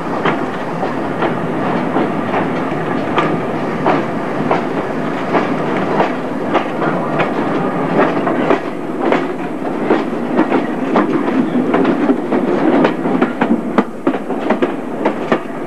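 Wheels of a moving train rumbling along the track, with a run of sharp clicks as they pass over rail joints and points, heard from a carriage window.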